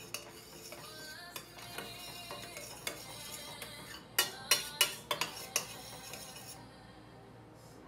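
Metal spoon stirring sauce in a small stainless steel saucepan, scraping softly and then clinking against the pot several times a little past the middle.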